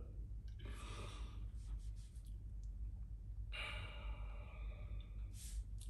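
A man breathing quietly: two long breaths out, the first starting about half a second in and the second a little past the middle, then a brief sharp breath near the end.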